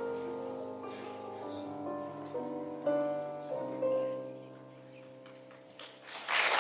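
A slow piano piece played live on a keyboard, with held notes, fading out about four seconds in. Applause starts to rise near the end.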